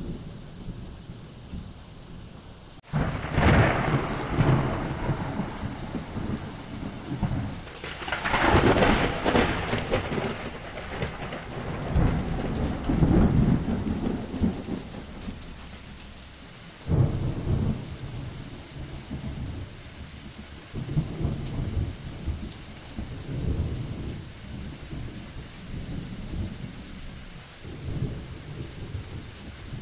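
Steady rain with rolling thunder. Thunder breaks suddenly about three seconds in and rumbles on, peaks again loudly a few seconds later, cracks in suddenly once more near the middle, then gives way to lower, quieter rumbles.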